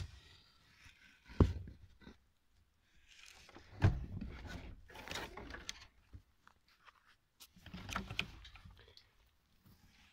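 A few dull knocks with stretches of scuffing and rustling against the wooden crates and boards of a rabbit pen: one knock a little over a second in, then longer scuffs in the middle and near the end.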